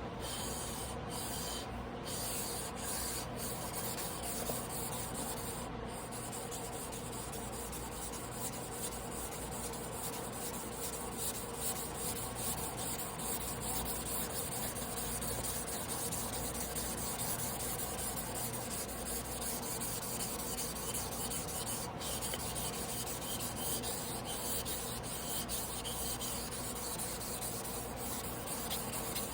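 A Hayate Yoshihiro Damascus carbon-steel sashimi knife blade being ground by hand on a whetstone: a steady scraping of steel on stone.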